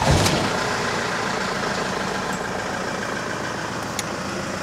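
Camper van's 3-litre common-rail diesel engine idling steadily just after starting, a little louder for the first half second before settling. A RaceChip tuning box has just been fitted, and the engine runs without knocking.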